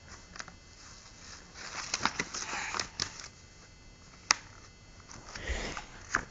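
Paper pages of a picture book rustling and tapping as a small child handles them, in scattered small clicks with one sharp tick about four seconds in.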